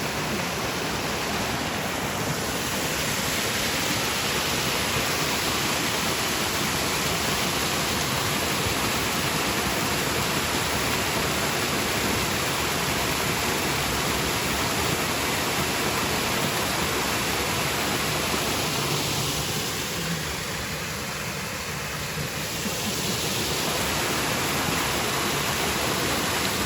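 Waterfall rushing: a steady, loud roar of falling water that dips a little for a few seconds near the end.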